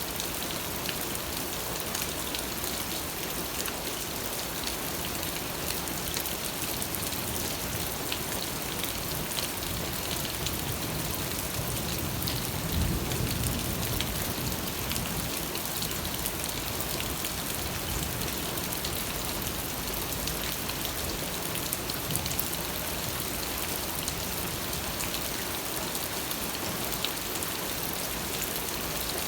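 Steady rain falling, a dense hiss of drops with many small individual drop ticks. A brief low rumble swells near the middle.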